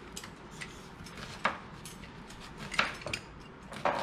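Food-preparation clatter: kitchen knives tapping on plastic cutting boards as vegetables are diced, and a metal hand lime squeezer being worked. Three sharp clacks stand out, about a second apart, over lighter ticks and handling noise.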